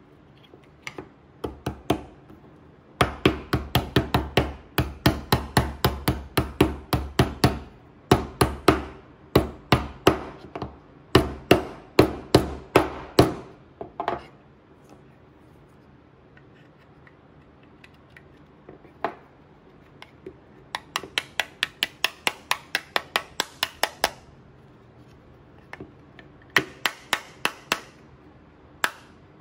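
A small mallet tapping laser-cut wooden pieces, driving their tab-and-slot joints together. The taps come in quick runs of about five a second, with a pause in the middle.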